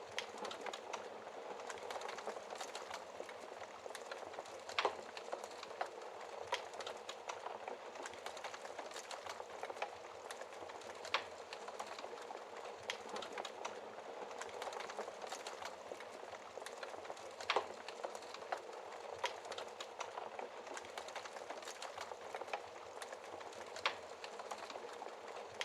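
Fire in a fireplace crackling steadily, with four louder pops spaced several seconds apart.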